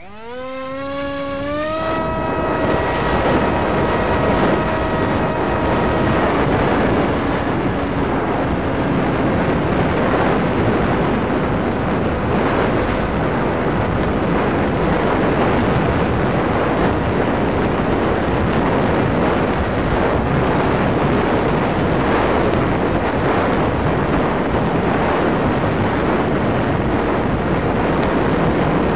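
Electric motor and propeller of an FPV RC plane spinning up with a rising whine over the first two seconds as it is throttled up for launch. The whine then holds steady and is soon buried under a loud, even rush of wind over the onboard microphone as the plane flies and climbs under power.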